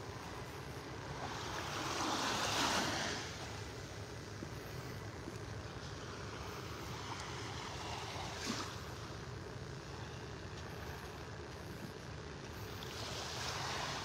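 Small waves lapping on a calm beach. The wash swells softly about two seconds in and again near the end, over a steady background hiss, with one brief tap a little past halfway.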